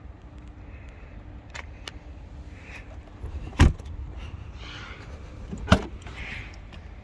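Two car doors shut with solid thumps about two seconds apart, amid small clicks and a jingle of keys over a low steady rumble.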